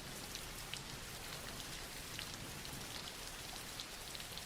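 Steady soft rain falling on a surface, with faint scattered drop ticks.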